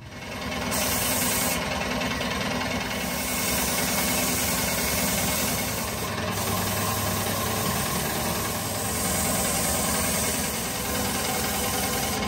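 Compressed-air paint spray gun hissing steadily as it sprays paint, over a low steady machine hum. It starts abruptly about half a second in.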